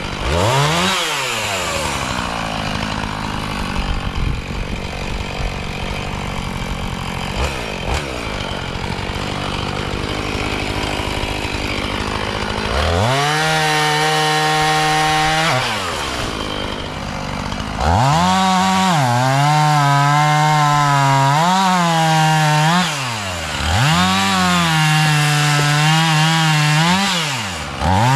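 Two-stroke chainsaw running: a quick rev about half a second in, a quieter stretch, then held at high revs twice, the second time with its pitch dipping and recovering several times.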